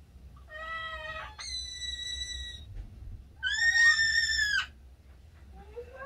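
Quaker (monk) parakeet mimicking other birds with three drawn-out whistled calls in a row. The second call is higher and steadier than the first. The third, about three and a half seconds in, is the loudest and dips in pitch at its start.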